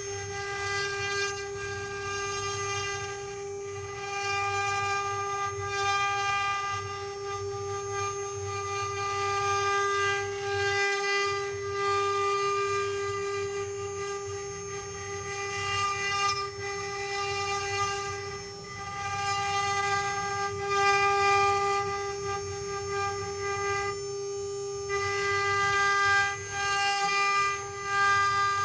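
Multi-head CNC wood-carving machine running: the spindles whine at one steady pitch, with cutting noise swelling and fading every few seconds.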